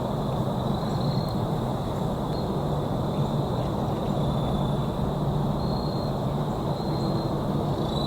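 Steady low outdoor rumble with a constant hum, and short high-pitched tones recurring every second or so.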